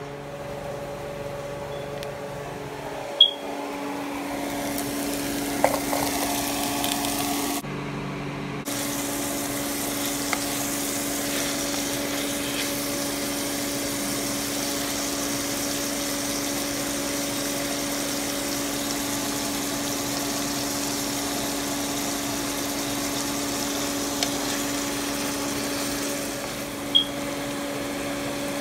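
Ground beef sizzling in an oiled frying pan: a steady hiss over a constant low hum, with a couple of sharp clicks.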